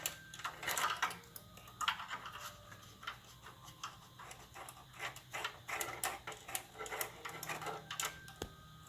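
Faint irregular small clicks and scrapes of a screwdriver working a tiny M.2 mounting screw into a motherboard.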